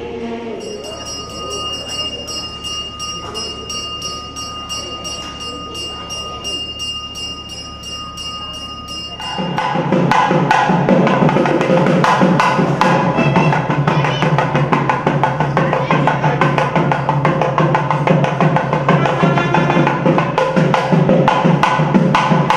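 Hindu temple puja percussion: a steady ringing bell tone for about the first nine seconds, then loud, dense, rapid drumming and bell-ringing that starts suddenly partway through and keeps going.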